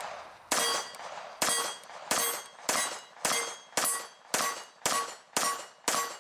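A Makarov-variant 9x18 semi-automatic pistol firing steady slow fire, about ten shots spaced roughly half a second apart. Each shot is followed by a short metallic ring.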